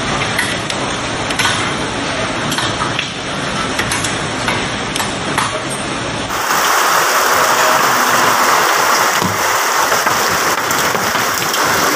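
Hail and heavy rain pelting down in a dense, steady rush, with scattered sharp ticks of hailstones striking. About six seconds in it changes abruptly to a louder, brighter downpour.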